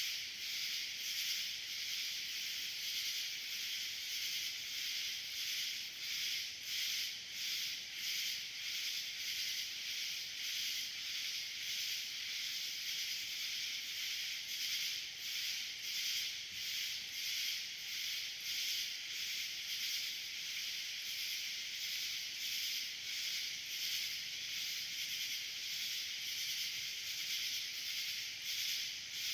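A dense summer-night swarm of cicadas calling together: a steady high-pitched buzzing hiss that pulses evenly a few times a second.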